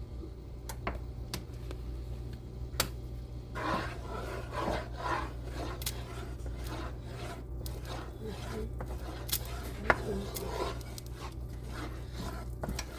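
A spoon scraping against a cooking pot, stirring flour into melted butter to make a roux. A few sharp clicks come first, then repeated scraping strokes from about four seconds in, with a sharp knock of the spoon on the pot near the end.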